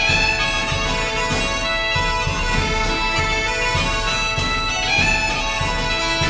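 Background bagpipe music: a melody over steady drones.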